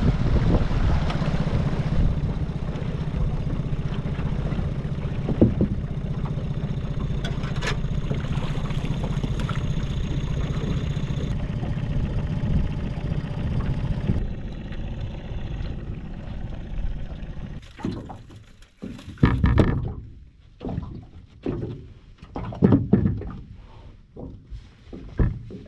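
Steady rumble of a boat under way, with wind and motor noise. It drops away about two-thirds through, and irregular knocks and rattles follow as a mud crab is handled in a crab dilly net in an aluminium boat.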